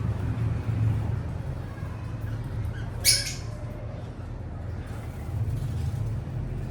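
A small pet parrot gives one short, harsh squawk about halfway through, over a steady low hum.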